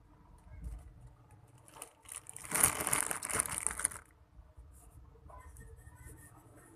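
Very sticky slime being squished and pulled apart in the hands, a crackling, crinkly noise that is loudest for nearly two seconds in the middle.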